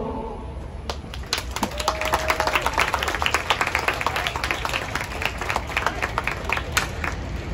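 Audience clapping, starting about a second in and carrying on as steady applause.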